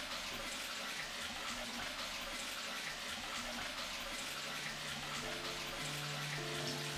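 Steady rush of running water filling a bathtub. About four seconds in, low sustained music notes come in underneath.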